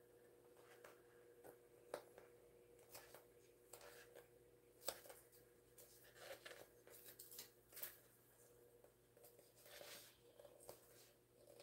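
Faint rustling and crinkling of vinyl and strap webbing being folded and handled by hand, with scattered soft clicks, over a low steady hum.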